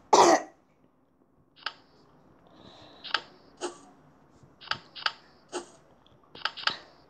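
Irregular short, sharp clicks, some in quick pairs, from tapping on a tablet touchscreen during a card-matching game; a brief louder sound opens it.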